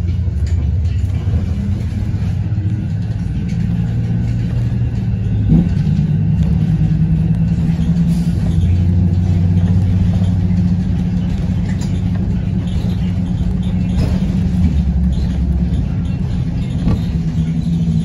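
Blue Bird Vision school bus engine running as the bus drives, heard from inside the bus: a steady low drone whose note shifts about five and a half seconds in.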